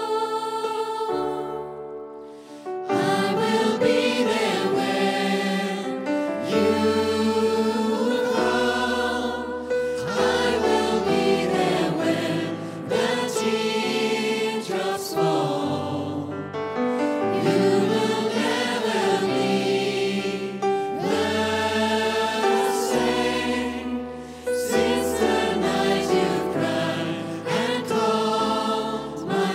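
Gospel choir singing over musical accompaniment; after a short dip, the choir comes in fully about three seconds in.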